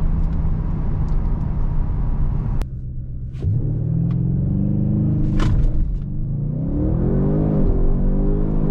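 Audi RS7's twin-turbo 4.0-litre V8 heard from inside the cabin under hard acceleration. The engine note climbs, drops at an upshift about six seconds in, climbs again and drops at another shift near the end. Before that, a steady engine and road drone cuts off suddenly about two and a half seconds in.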